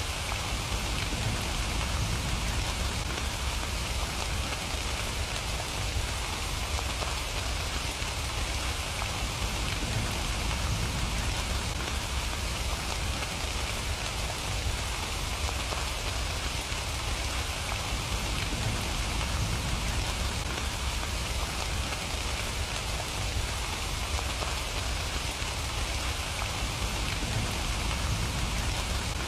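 Steady rain falling, an even hiss with a low rumble underneath and no breaks.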